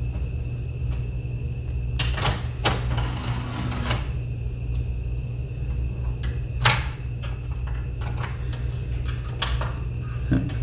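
Marantz DV4200 DVD player's disc-tray mechanism clicking and knocking, with a short motor whirr, as the tray is driven out while the disc clamp is held up by hand. The tray sticks because the clamp does not lift clear of the spindle. A steady low hum runs underneath.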